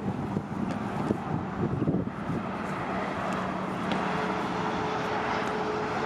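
Jet airliner engine noise: a steady rush with a low hum, joined about four seconds in by a higher steady whine.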